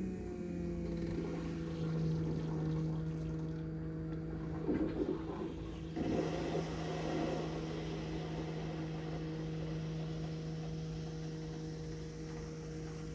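BMW X5 35d's electric fuel pump, run straight off a battery, humming steadily while pushing air through the diesel fuel system to prime it after a fuel filter change. There are gurgling bursts about five and six seconds in, and the hum cuts off suddenly at the end.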